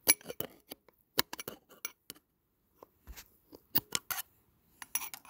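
Flathead screwdriver clicking and scraping against a metal oil filter housing as its thin metal tabs are bent back down over the centre tube, in several short clusters of sharp metallic clicks.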